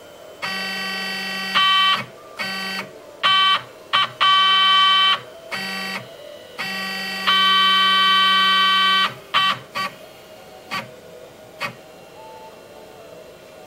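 CNC machine's stepper motors whining in steady pitched tones as the axes move. The tones start and stop in runs of about half a second to two and a half seconds, then give way to a few short blips near the end.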